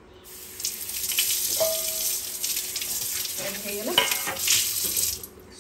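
Curd gravy with fried hilsa pieces sizzling in an oiled pan on the stove as it heats towards the boil; the sizzle starts just after the beginning and cuts off shortly before the end.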